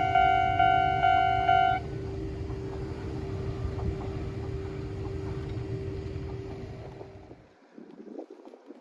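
Japanese railway crossing's electronic warning bell ringing at about two strikes a second, stopping a couple of seconds in. A train's low rumble carries on after it and fades away over the next few seconds as the train moves off.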